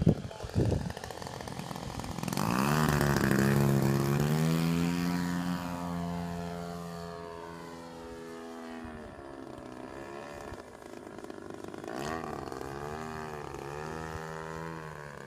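Big Hots RC plane's 55cc two-stroke gas engine in flight: its drone swells about two and a half seconds in, holds a steady pitch, then fades, and near the end comes back with its pitch wavering up and down. A couple of thumps at the very start.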